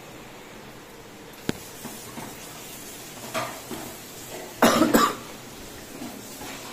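A person coughing twice in quick succession about halfway through, after a single sharp click; otherwise faint room noise.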